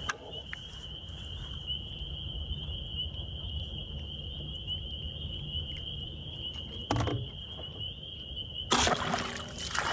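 Steady low rumble with a constant high-pitched whine, a short knock about seven seconds in, then near the end a sudden loud burst as a bowfishing arrow is shot from a recurve bow and strikes a carp.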